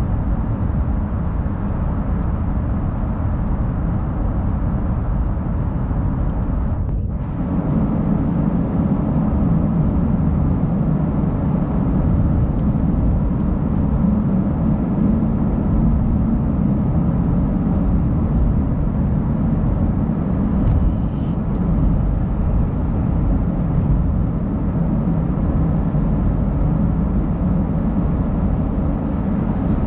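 Steady low road and engine noise heard from inside a car cabin while driving at speed through a highway tunnel.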